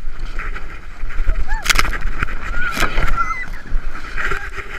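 Sled sliding fast down a snowy hill: the sled hissing and scraping over the snow, with wind rumbling on the camera's microphone, two hard bumps about a second and a half and three seconds in, and the riders shrieking and laughing.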